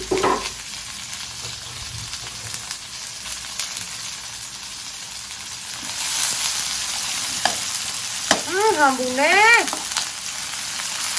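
Stir-fry sizzling in a pan with the clicks and scrapes of stirring, the sizzle growing louder about six seconds in. Near the end a short wavering voice-like tone rises and falls twice.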